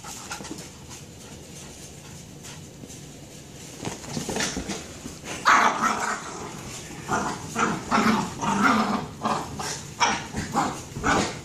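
Small dog barking in quick repeated bursts as it attacks a large inflatable pink ball, starting about four seconds in.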